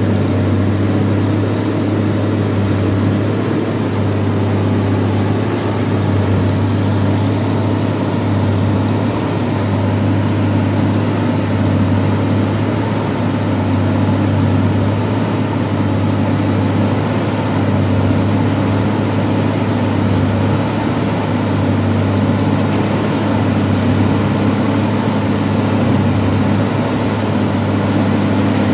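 Railway track tamping machine at work, its diesel engine running in a steady low drone that does not change.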